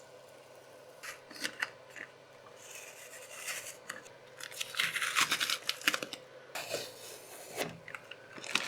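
Old blue painter's-tape sheet being peeled off a heated 3D printer bed, a few sharp clicks and then stretches of tearing and ripping from about two and a half seconds in.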